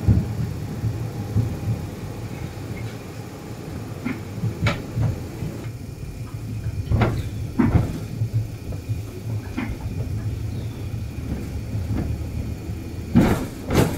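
Tram running, heard from inside the car: a steady low rumble with scattered knocks and clunks, two of the loudest near the end.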